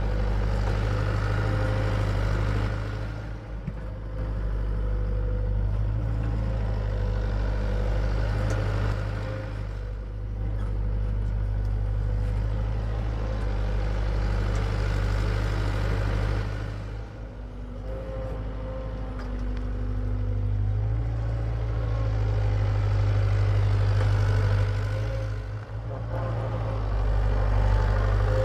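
Hitachi EX75UR excavator's diesel engine running steadily while digging, dropping off briefly about every seven seconds and then picking up again, in time with its dig cycles.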